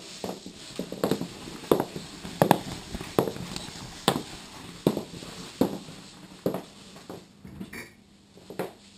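High-heeled boots clicking on a wood-effect kitchen floor at a steady walking pace, about one sharp heel strike every three-quarters of a second, stopping about seven seconds in. A light clatter follows near the end.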